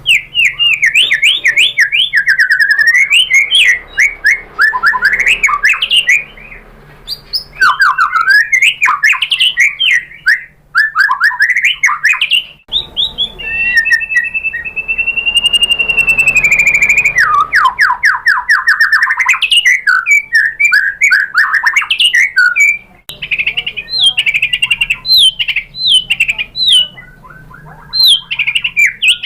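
White-rumped shama singing a long, varied song: rapid trills, slurred up-and-down whistles and quick phrases, with one long held whistle about halfway through.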